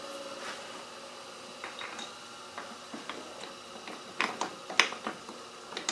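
Light metallic clicks and knocks as the oiled intermediate gear pin is worked into a Land Rover LT230 transfer box casing, a few faint ones at first, then sharper ones in the last two seconds.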